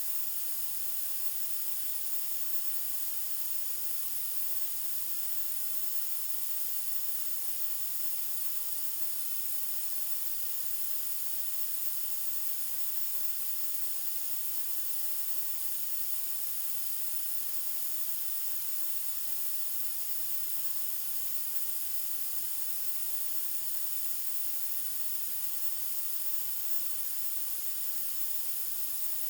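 White noise: a steady, unchanging hiss, brightest in the treble.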